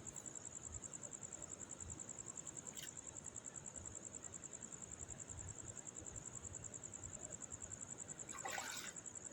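Night insects trilling steadily in a fast, even high-pitched pulse, with a brief rustling noise near the end.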